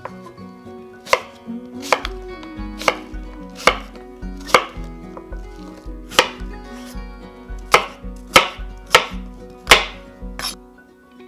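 Large kitchen knife chopping an apple on a bamboo cutting board: about ten sharp, unevenly spaced strikes of the blade against the board.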